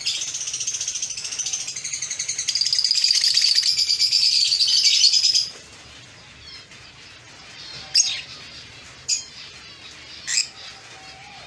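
Lovebird chattering in a loud, high-pitched, rapid trill for about five seconds, then three short sharp chirps spaced about a second apart.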